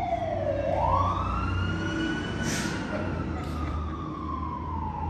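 Emergency vehicle siren sounding a slow wail. Its pitch falls, swings sharply back up about half a second in, then slowly sinks again.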